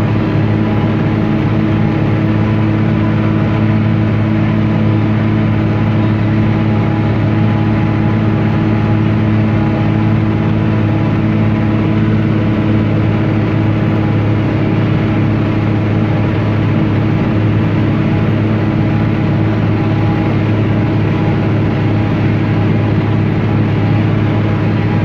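John Deere 4250 tractor's six-cylinder diesel engine running steadily at a constant speed, with an even drone.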